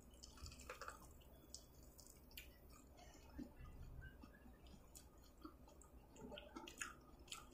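Near silence, with faint scattered clicks and soft chewing of seafood eaten by hand.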